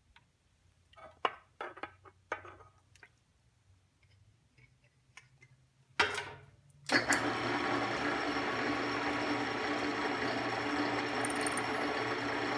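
A few short hisses of lubricant sprayed from an aerosol can onto an aluminum block, then a louder burst about six seconds in. About seven seconds in, a bench drill press motor starts and runs steadily.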